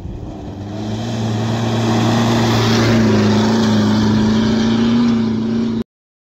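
Rally jeep's engine running hard at speed on sand, growing louder over the first two seconds as it comes closer and passes, with a steady engine note under a thick layer of rushing noise. The sound cuts off suddenly near the end.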